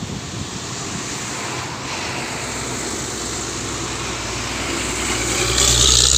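Engine noise of a passing vehicle, building steadily with a low hum and loudest near the end.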